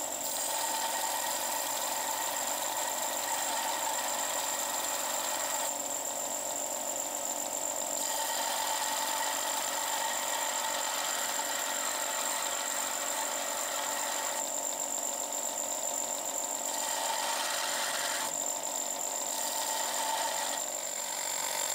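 Bench belt sander running steadily with a constant whine while a small steel arrowhead is ground to a point against the abrasive belt, throwing sparks. The grinding noise eases briefly a few times.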